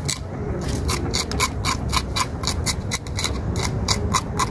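Knife blade scraping the scales off a small fish, quick rasping strokes at about four to five a second.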